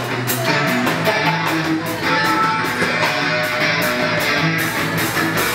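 Live band jamming instrumentally: electric guitars playing over a drum kit, with an even beat on the cymbals.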